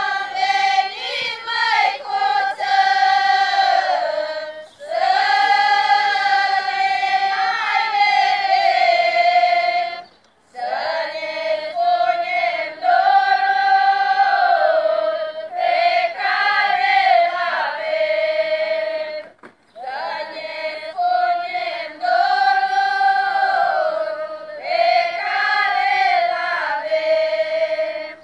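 A large choir of women singing a Romanian devotional folk song in unison, unaccompanied, in long phrases with brief pauses for breath.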